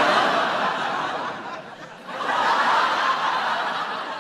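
Audience laughing in two swells, the second rising about two seconds in, then fading.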